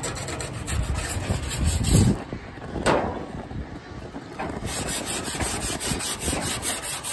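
Hand rubbing on a car's sheet-metal roof with a folded abrasive sheet, quick repeated strokes scrubbing off paint softened by a gas torch.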